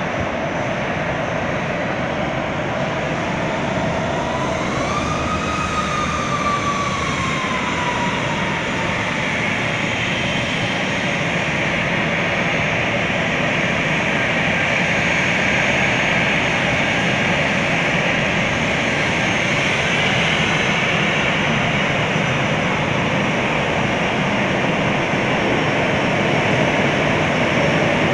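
Airbus A321's twin jet engines running at taxi thrust, a steady whine with a roar under it that grows gradually louder as the airliner taxis closer. About four seconds in, a whine rises in pitch and falls away again over a few seconds.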